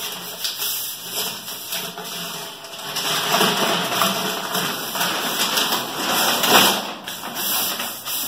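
Packing material rustling and crinkling as a rocket nose cone is unwrapped, with scattered light taps. The rustling grows louder about three seconds in and eases off near the end.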